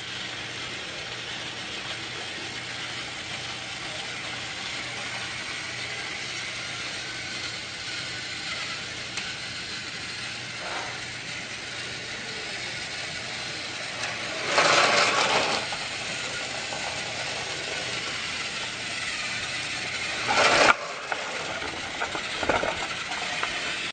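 A small motor running steadily with a constant low hum. It is broken by a louder noisy burst lasting about a second midway through and a short, sharp loud burst a few seconds before the end.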